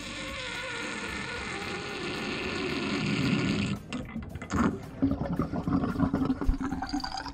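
Water pouring into a stainless steel sink's drain, a steady rush that cuts off abruptly a little under four seconds in; after that, water draining down the sink with an uneven, fluctuating sound.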